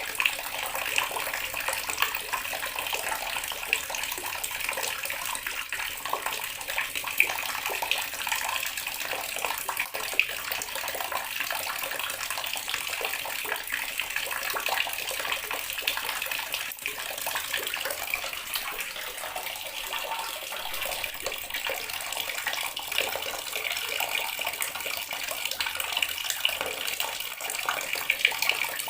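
Water running steadily from a tap and splashing into the water below, a continuous stream with small splashes.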